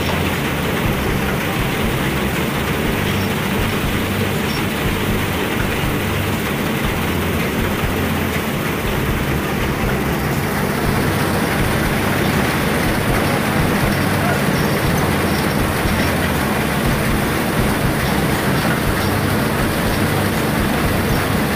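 Tractor-driven grain thresher running steadily: a loud, even mechanical noise with the tractor engine's low hum underneath.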